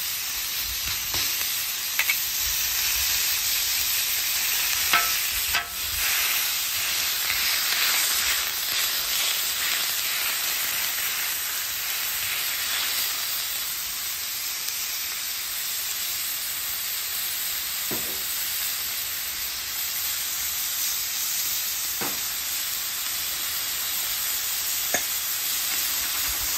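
Ground beef sizzling steadily on a hot Blackstone flat-top griddle, left untouched to sear and build a crust. A few short clicks break the hiss.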